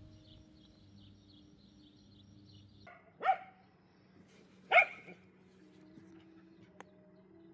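A dog barking twice, about a second and a half apart.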